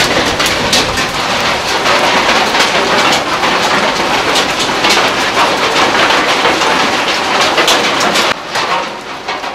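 Hailstorm: a dense, steady hiss of falling hail with many sharp individual stones striking the ground and foliage.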